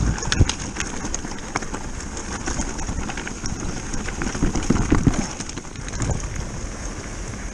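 Electric mountain bike rolling fast down a loose rocky gravel track: tyres crunching over stones, with scattered sharp clicks and rattles from the bike and the gravel.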